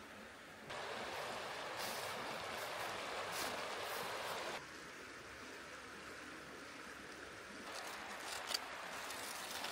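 Shallow rocky river running, a steady rush of water that comes up suddenly about a second in and drops back to a softer running-water background a little before halfway. Near the end, a few light clicks and crinkles of aluminium foil being handled.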